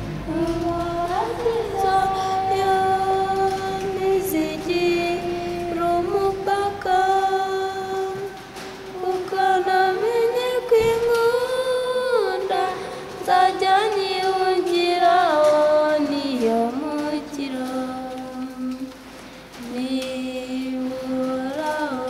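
Young voices singing unaccompanied: a slow melody of long held notes that step up and down.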